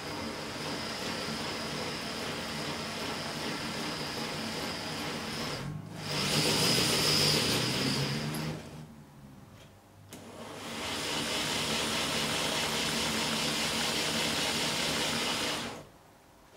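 A G-scale model tram motor block running on a test stand with its wheels spinning, a steady electric motor and gear whir. It grows louder about six seconds in, winds down and stops around nine seconds, starts again a second later and stops shortly before the end.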